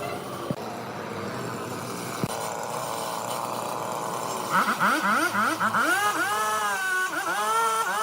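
A steady rasping noise, then about halfway in a motor starts revving up and down repeatedly before settling into a steady high whine with brief dips.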